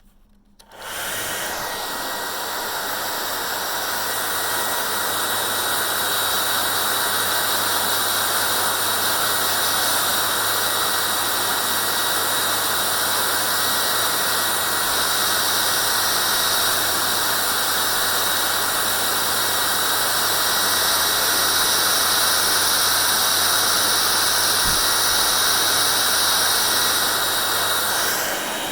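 Electric hair dryer switched on about a second in, then running steadily: a loud, even rush of blown air with a thin high whine over a low motor hum.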